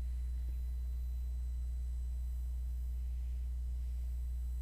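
Steady low electrical hum in the recording, a constant low drone with no other sound beyond a faint tick about half a second in.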